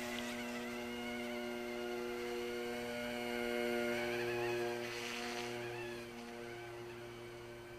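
Eachine E150 RC helicopter's electric motors and rotors humming and whining in flight, the whine wavering in pitch as the throttle changes. It fades after about five seconds as the helicopter climbs away.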